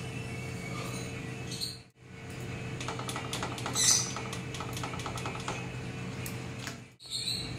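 Hot cooking oil sizzling and crackling in a small frying pan as a large papad is deep-fried, with a brief louder burst about four seconds in. The sound cuts out briefly twice.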